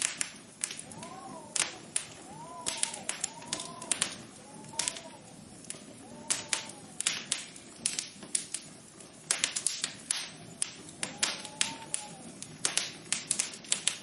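Irregular tapping: sharp clicks in quick clusters, mixed with short tones that rise and fall again every second or so.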